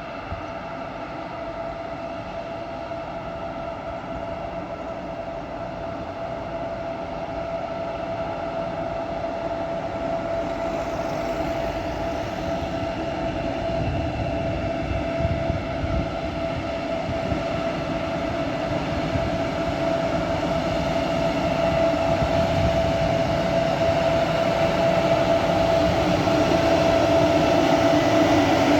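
Freight train hauled by an E494 electric locomotive pulling slowly into the station, its steady electric whine and rumble growing louder throughout.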